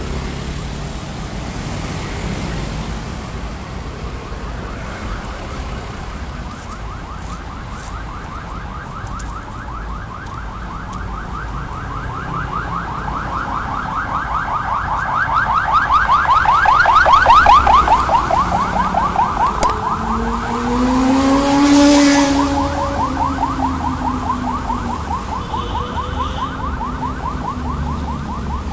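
Steady road traffic on a busy city boulevard. About halfway through, a rapid buzzing pulse grows louder, peaks and fades like a vehicle passing close by. Just after it, a lower humming tone rises and falls as another vehicle goes past.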